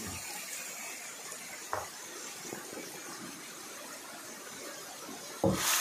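Steady splashing and churning of water from a dense mass of farmed hybrid catfish jostling at a pond's surface, with a short knock about two seconds in and a louder thump near the end.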